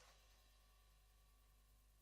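Near silence, with only a faint steady hum and hiss.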